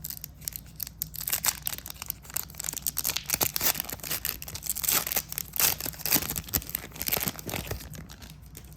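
A foil trading-card pack from a Marvel Annual hobby box being torn open, with the wrapper crinkling and crackling irregularly. The noise eases off near the end.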